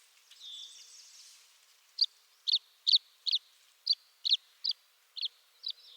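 Tree swallow calling: a brief warbling gurgle with a thin whine in it, then a run of about nine sharp, high chirps, roughly two a second.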